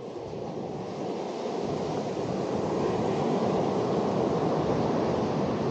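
Steady rush of surf breaking on a sandy beach, mixed with wind on the microphone, growing gradually louder.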